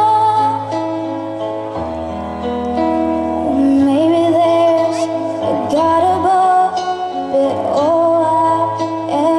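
A female vocalist singing a slow song, holding long notes with gliding pitch, over an instrumental accompaniment of sustained chords and bass notes that change every second or two.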